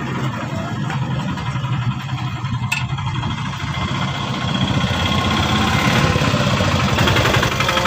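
An engine idling steadily, with a single sharp click a little under three seconds in and a brighter hiss joining about halfway through.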